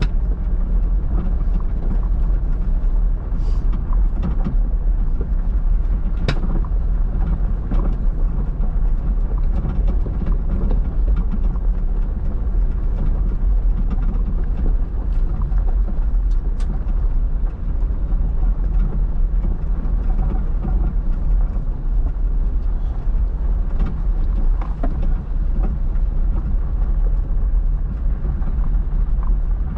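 Off-road vehicle engine running steadily as it drives, a constant low rumble with occasional sharp knocks and rattles over rough ground.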